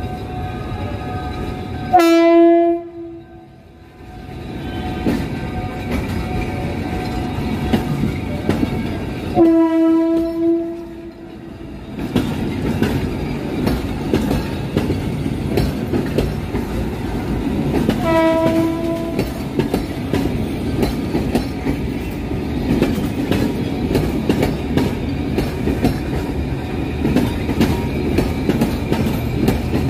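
Passenger train locomotive's horn sounding three times: a short blast about two seconds in, a longer one near ten seconds, and a fainter short blast around eighteen seconds. Between and after the blasts the train's coaches roll past close by with a steady rumble and frequent clicks of wheels over the rail joints.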